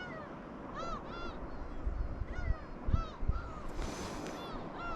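Birds calling in a quick series of short, arched calls, over low rumbling thumps; a brief hiss comes just before four seconds in.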